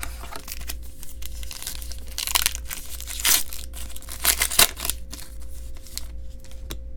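A trading-card pack wrapper being torn open and crinkled by hand. The rustling comes in irregular bursts, loudest about three and four and a half seconds in, over a faint steady hum.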